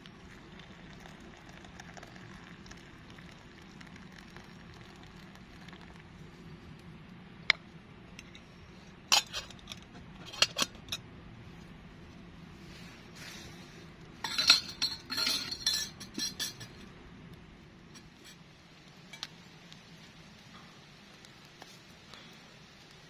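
Metal camp cookware clinking and clattering as it is handled: a single clink, then a few more, then the loudest run of clatter about two-thirds of the way in. Steady rain hisses underneath.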